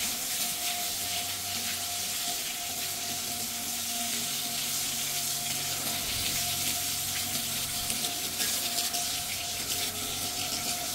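Water running steadily from a hose pipe while a motorcycle is washed down, with a faint steady whine underneath.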